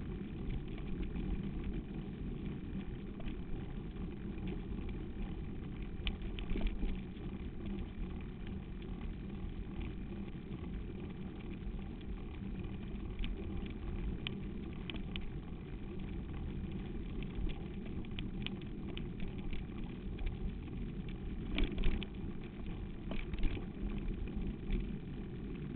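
Steady low rumble of travelling over a dirt track, with short rattles scattered through it and a few louder clatters near the end.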